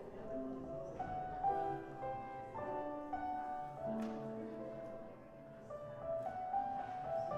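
Slow instrumental music on a keyboard instrument: sustained chords under a melody, the notes changing about once a second.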